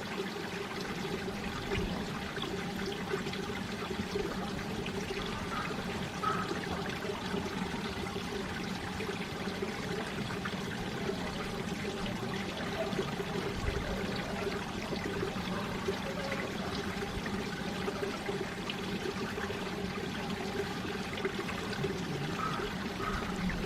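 Mountain valley stream flowing, a steady even rush of running water.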